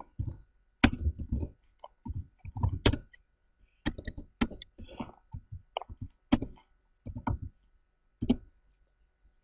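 Typing on a computer keyboard: short runs of keystrokes separated by brief pauses.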